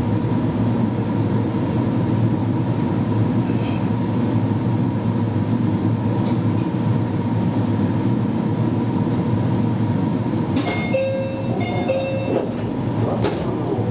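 Meitetsu 1200-series electric train standing at a station platform, its onboard equipment giving a steady hum with a thin high whine. A few short electronic tones sound about ten seconds in.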